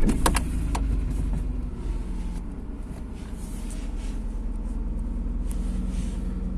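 Kia Magentis 2.5-litre V6 catching as it starts. The revs flare and then settle within a couple of seconds to a steady idle. The idle carries a droning, rustling gearbox noise that the owner traced to a sagged upper gearbox mount passing it into the cabin.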